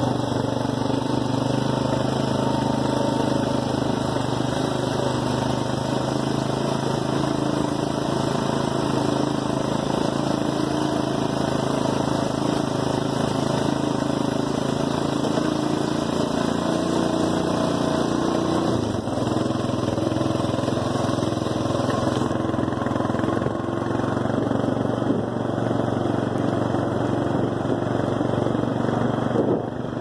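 Four-wheeler (ATV) engine running steadily as it drives along at an even pace.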